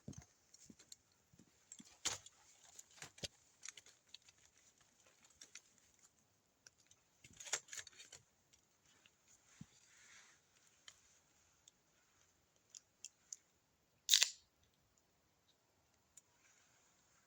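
Scattered faint clicks and soft rustles, with one louder sharp click about fourteen seconds in.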